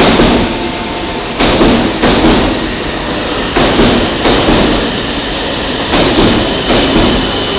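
Irregular knocks and clunks, roughly one a second, over steady station noise beside a stopped JR E231-series commuter train at the platform.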